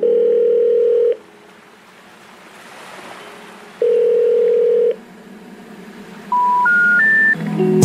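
Telephone line tones: a steady ringing tone sounds twice for about a second each, with a faint hiss between. Near the end come three short tones stepping up in pitch, the special information tones that signal a call cannot be completed.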